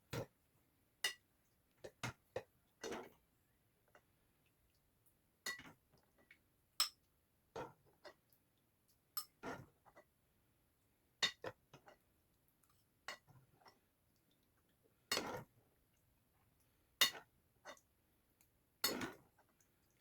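Eating utensils clinking and knocking against a bowl in short, scattered strikes at irregular intervals, sped up to double speed.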